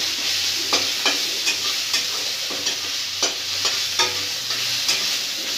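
Ginger-garlic paste and whole spices frying in hot oil in a metal kadai, a steady sizzle, with a spatula scraping and knocking against the pan a dozen or so times as it is stirred.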